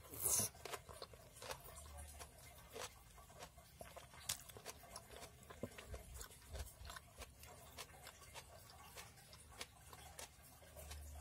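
Faint, scattered small clicks and crackles, with one louder rustling burst right at the start.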